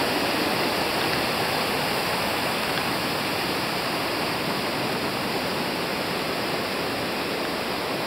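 Steady rush of a waterfall and stream cascading over rock slabs.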